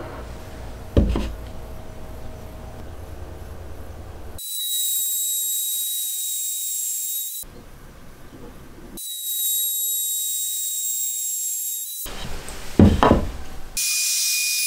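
Makita RT50D cordless trim router running with a high steady whine, twice for about three seconds each from about four seconds in. After a couple of knocks near the end, it cuts a groove in wood with its whine at a lower pitch.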